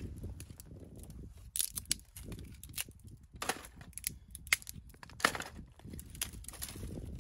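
Dry twigs and brush crackling as they are handled and laid onto an unlit campfire lay, with sharp irregular cracks every half second or so over a low rustle.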